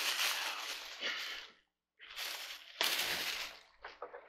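Thin plastic packaging bag rustling and crinkling as it is cut open and pulled off a chair part, in several separate handlings. The sound stops completely for a moment a little before halfway.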